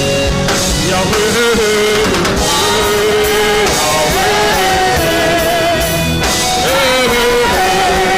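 Live worship music: a band with drums and bass plays while a voice sings long held notes that step up and down in pitch.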